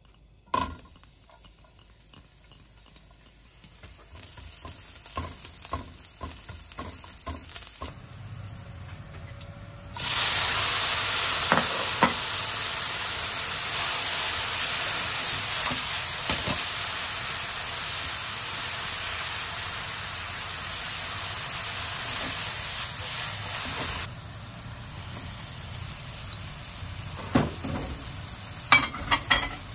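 Oil and garlic start to sizzle softly in a nonstick frying pan. About ten seconds in, the sizzle jumps to a loud, steady hiss as sliced shiitake mushrooms are stir-fried over high heat, with the spatula scraping and knocking against the pan. The sizzle drops off suddenly further on, and a few sharp spatula taps on the pan come near the end.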